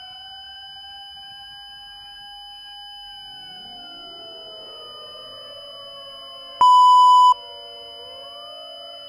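Civil defense sirens wailing over a faint steady high whine. One siren slowly rises and then falls in pitch, and a second winds up from low partway through. A short, loud steady beep cuts in about two-thirds of the way through.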